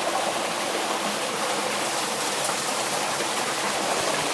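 Water pouring and splashing steadily into a flooded mine tunnel, a constant rushing noise with no breaks.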